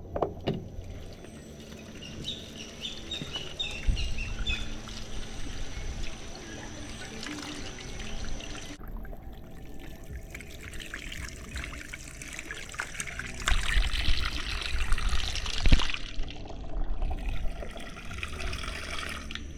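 Water pouring and trickling, with splashing that grows busier in the second half.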